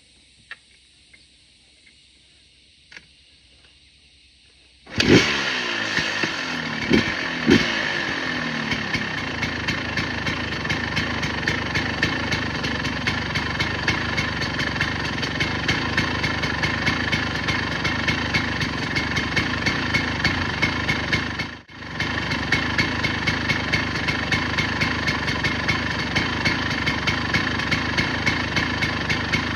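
1998 KTM EXC 250 two-stroke dirt bike engine starting about five seconds in, blipped twice, then idling steadily through its newly fitted, straight, non-leaking exhaust. The sound breaks off for a moment about 22 seconds in.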